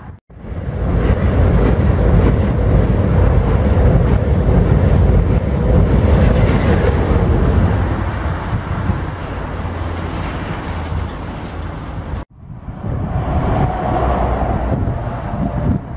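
Intermodal freight train of pocket wagons carrying lorry trailers rolling past close by: a loud, steady rumble of wheels on the rails, with wind on the microphone. The sound drops out suddenly twice, just after the start and about twelve seconds in.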